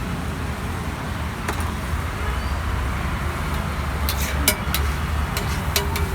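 Steady low rumble of road traffic, with a run of sharp clicks or taps from about four seconds in.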